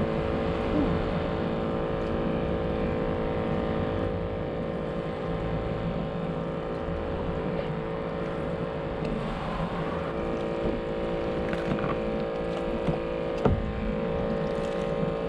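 A boat motor running at a steady, unchanging pitch over water and wind noise, with a single sharp knock near the end.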